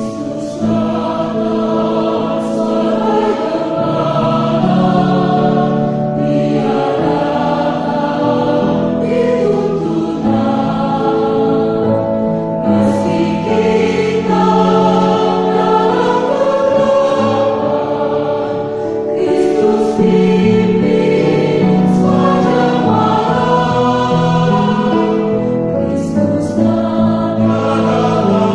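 Church choir singing a Christian worship song in harmony, several voice parts holding and moving between notes together.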